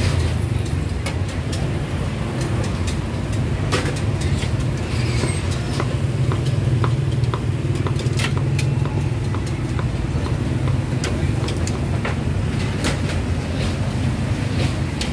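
Busy street ambience: a steady low engine and traffic rumble, with frequent sharp clicks and clatters scattered through it.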